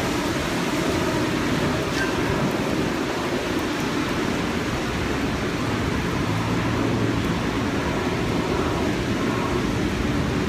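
Steady hiss of heavy rain pouring onto a wet city street, with a low rumble of traffic underneath.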